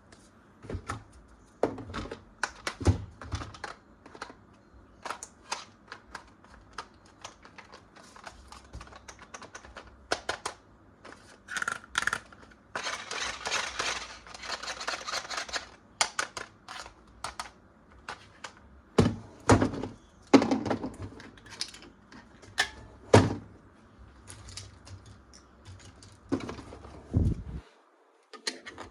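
Hard plastic toys and their packaging being handled: a run of irregular clicks and taps, a stretch of rustling about halfway through, and a few heavier knocks in the second half.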